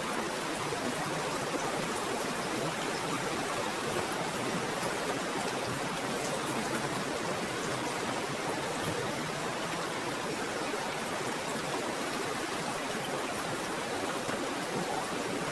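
Rushing water, a steady even hiss with no breaks.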